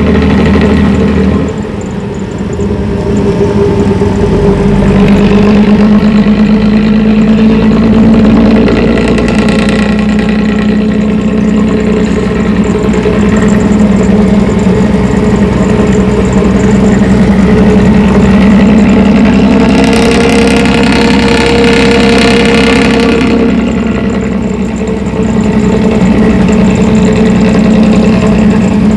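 Bus diesel engine running through a modified 'ngorok' (snoring) exhaust: a loud, deep, steady drone. The revs swell twice, about five seconds in and again about twenty seconds in, when the note turns brighter and rougher.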